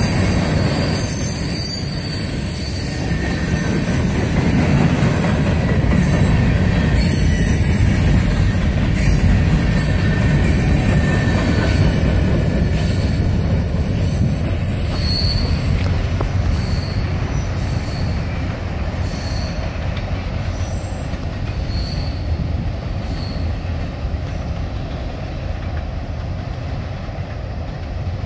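Freight cars of a CSX manifest train rolling past on steel wheels, a steady rumble with high-pitched wheel squeal. About halfway through the last car has gone by and the train's sound slowly fades as it moves away, with spaced high squeals still ringing out.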